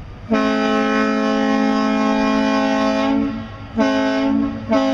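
Deep air horn with two notes sounding together: one long blast of about three seconds, then a short blast, and a third blast starting near the end, the pattern of a ship's horn salute.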